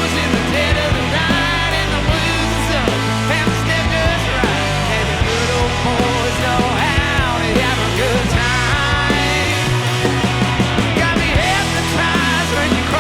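Live rock band playing electric guitar, bass guitar and drums at a steady, loud level, with bending guitar notes over a held bass line.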